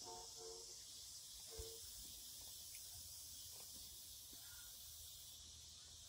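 Faint, steady high-pitched chirring of crickets, with a couple of faint brief tones in the first two seconds.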